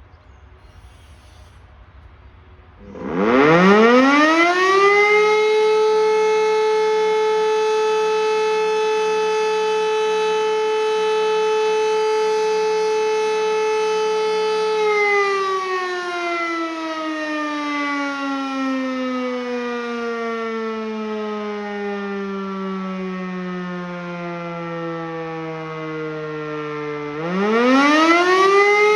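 E57 electromechanical civil-defence siren starting up about three seconds in, its tone rising quickly to a steady pitch and holding for about twelve seconds. It is then switched off and slowly winds down in pitch as the rotor coasts, and spins back up near the end. The twelve seconds on, twelve seconds off is the German fire-brigade alarm signal, sounded here as a siren test.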